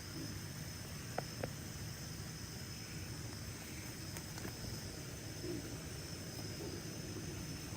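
Steady chirring of night insects such as crickets, over a low rumble, with two short clicks about a second in.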